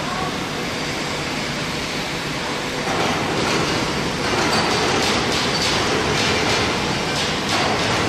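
Foundry noise while molten metal pours from a tilting induction furnace into a ladle: a steady rushing noise that grows louder about three seconds in, with scattered crackles.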